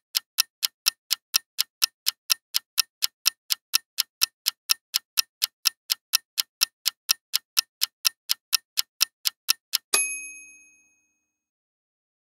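Countdown timer sound effect: clock ticking at about four ticks a second, ending about ten seconds in with a single bell ding that rings out for about a second, marking time up on the quiz question.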